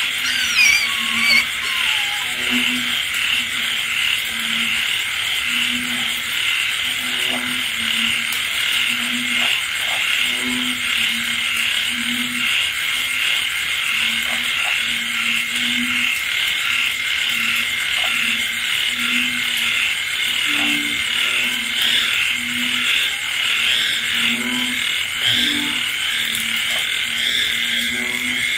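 A night chorus of frogs and insects: a dense, continuous high trilling chorus, with one frog's low croak repeating about once a second.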